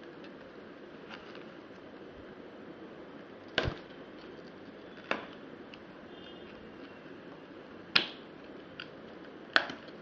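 Hard objects being handled: four sharp clicks or knocks, a little over three seconds in, near five seconds, and twice near the end, with a few fainter ticks in between, over a steady low hiss.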